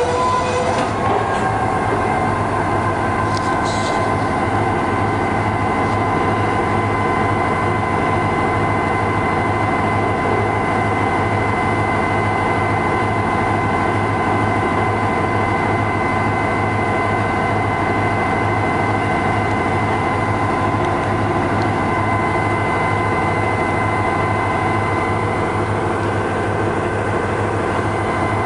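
South Shore Freight diesel-electric locomotive engine idling, a steady low throb with a constant whine over it.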